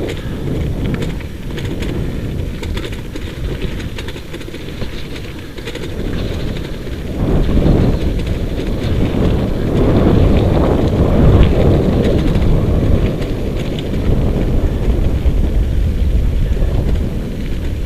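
Wind buffeting the microphone over the rolling rumble of a dog rig on a gravel road, pulled at a run by a team of huskies. It grows louder about seven seconds in.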